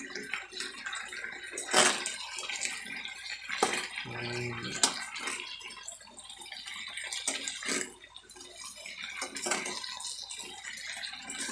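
Vegetables being stirred and tossed in a stainless steel wok with a metal spatula: uneven scraping and clinking of the spatula against the pan over a watery hiss of the cooking vegetables.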